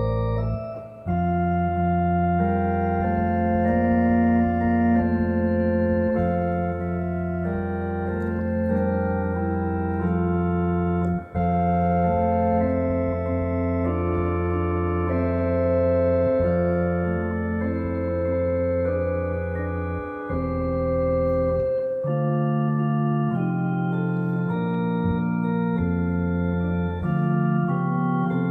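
Electronic home organ with two keyboards playing held chords over deep sustained bass notes, with brief breaks between phrases. The deep bass drops out for several seconds a little after twenty seconds in, then comes back near the end.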